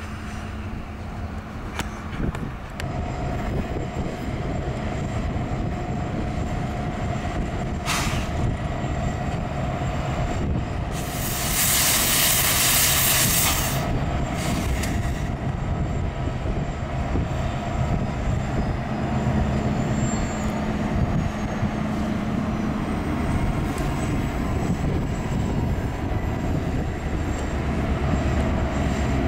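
Canadian Pacific diesel locomotive running steadily as it moves a train of tank cars, engine drone over the rumble of wheels on rail. Midway through, a loud hiss of escaping air lasts about three seconds.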